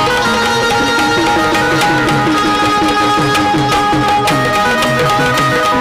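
Instrumental Indian folk music: a hand drum played in a fast, even rhythm, its low strokes bending in pitch, under long held melody notes.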